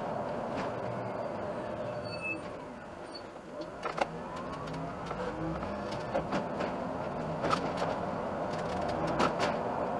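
Iveco Urbanway city bus driving, heard from the driver's cab: steady engine and road noise with scattered rattles and clicks. It goes quieter about three seconds in as the bus slows through a roundabout, then builds again as it pulls away.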